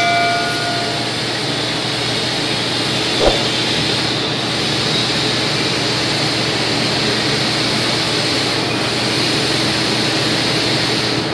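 A loud, steady rushing noise, like air blowing through a duct or pipe, with one short knock about three seconds in.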